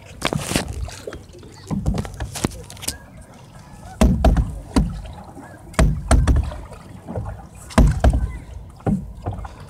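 Canoe paddling: repeated paddle strokes, each a splash and knock against the canoe's hull, coming irregularly every second or two over a steady hiss of water.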